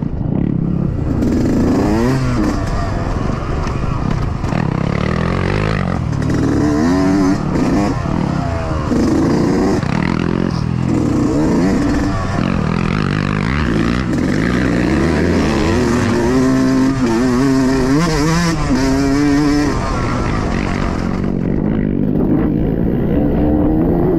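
Two-stroke Yamaha YZ125X dirt bike engine being ridden hard off-road, its pitch rising and falling over and over as the throttle is opened and closed, with some clattering and scraping from the bike.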